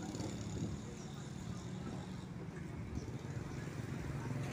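Roadside ambience: a steady low engine-like hum with distant motorbike traffic.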